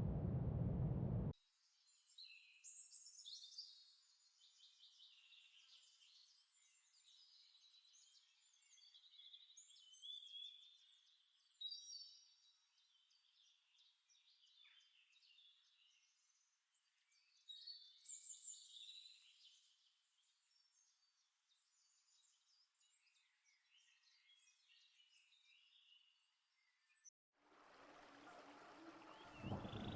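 Faint birdsong: many short chirps and warbling calls from several birds, with the low end cut away. A louder low rushing noise fills the first second and returns over the last couple of seconds.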